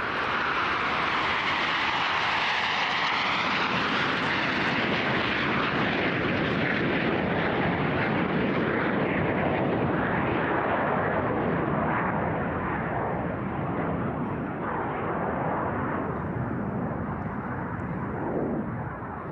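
Formation of Aermacchi MB-339 jet trainers flying past: loud, steady jet noise, with whining tones that glide in pitch during the first few seconds as the aircraft pass. The sound falls away at the very end.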